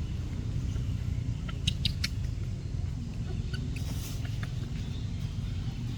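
A baby monkey making scattered short, high squeaks, in a few clusters, over a steady low rumble.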